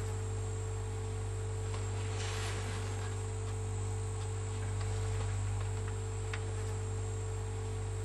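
A steady low hum with a faint thin high-pitched tone above it and a background hiss, unchanging in level.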